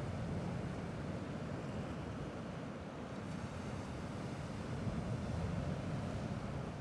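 Sea waves washing gently and steadily, heard as a low, even rumble with no distinct breaks.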